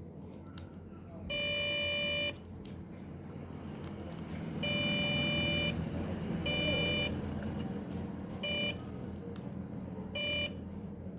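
Five electronic beeps of one steady, buzzy pitch, two of them about a second long and the rest shorter, over a low steady hum.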